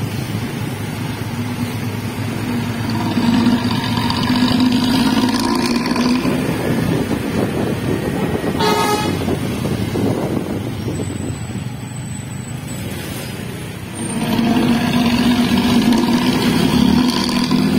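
Bus engine and its modified tinny ("cempreng") exhaust, heard from close behind, louder twice as it pulls: a few seconds in and again near the end. A short horn toot sounds about halfway through.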